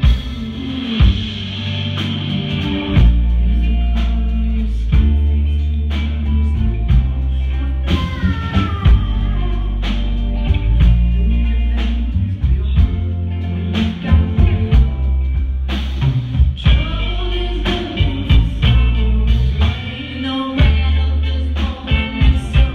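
Live soul band performing: a woman's lead vocal belting over electric guitar, bass guitar and a steady drum-kit beat.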